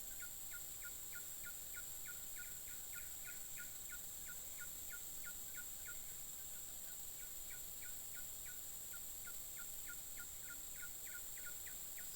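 A rapid, even series of short chirping calls, about three a second, pausing briefly near the middle, over a steady high-pitched insect drone.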